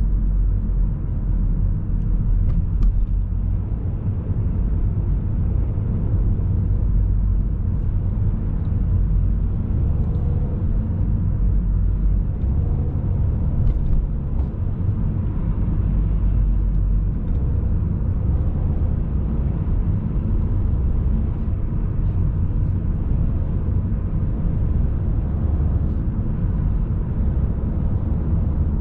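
Steady low rumble of a car driving along a city street: engine and tyre road noise heard from inside the car, with no marked changes.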